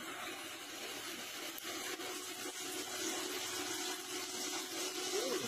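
Nakamura-Tome TW-20 CNC lathe machining under flood coolant: a steady hiss of coolant spraying over the cutting tool and workpiece, with a steady machine hum beneath. It gets a little louder from about three seconds in.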